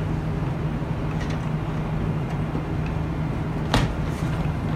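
Steady low background hum, with a few faint clicks and one sharp click near the end as a BNC connector is pushed onto a DVR's rear video input and twisted to lock.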